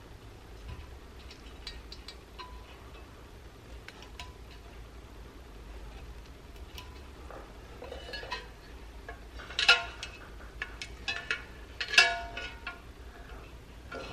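A painted toy truck cab being handled and parts fitted into it: scattered small clicks and taps, then two louder ringing clinks in the second half.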